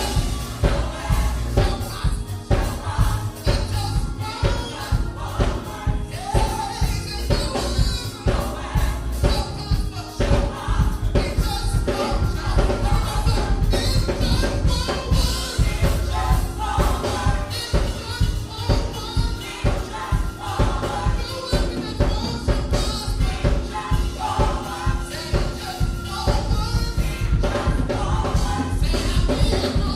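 Gospel music: a choir singing over a steady drum beat and bass.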